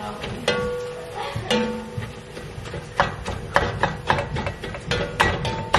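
Background music with held tones, over irregular sharp knocks of a utensil against a pan while ground beef is being browned.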